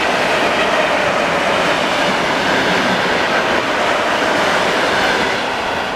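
Electric multiple-unit commuter train passing along a station platform: a steady noise of wheels on the rails and passing cars, easing slightly near the end as the last cars go by.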